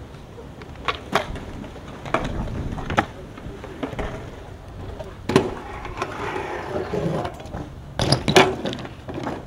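BMX bike riding skatepark ramps: tyres rolling on the ramp surface, broken by sharp knocks and clatters from the bike, with the loudest cluster of clanks near the end.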